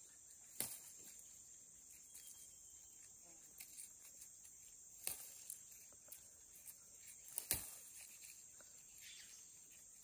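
Faint, steady high-pitched drone of insects, with a few sharp snaps and rustles of plant stems as alfavaca (basil) sprigs are picked by hand. The loudest snap comes about seven and a half seconds in.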